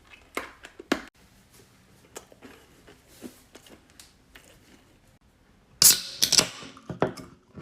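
Handling noises: a few sharp clicks, then about six seconds in a short run of loud hissy, crackly noise, as Mentos and a soda are handled.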